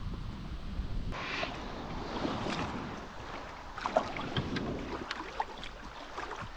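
Wind rumbling on the microphone, then from about a second in water splashing with scattered small knocks and clicks around an inflatable kayak being put on the water.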